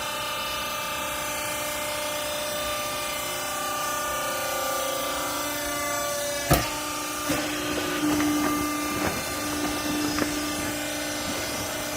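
Vertical clothes baler's hydraulic power unit running with a steady hum. A sharp bang comes about six and a half seconds in, then irregular knocks and clatter.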